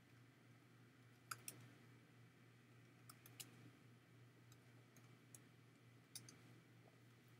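Faint keystrokes on a computer keyboard, about ten scattered clicks over several seconds as a search is typed, over a low steady hum.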